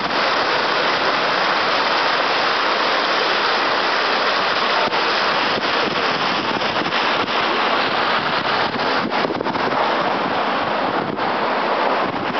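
Loud, steady rushing noise with faint scattered ticks.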